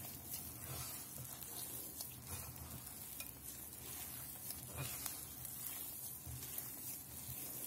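Hands kneading soft, sticky flour-and-yoghurt dough in a glass bowl: a faint, steady squishing and rustling with small soft knocks now and then.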